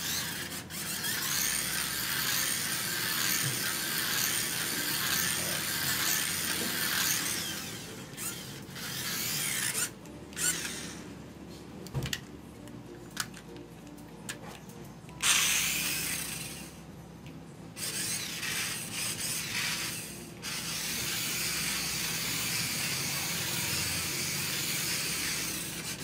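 Toy remote-control car's small electric drive motor and gears whirring. It runs steadily at first, comes in short spurts through the middle with a louder burst after about fifteen seconds, and then runs steadily again.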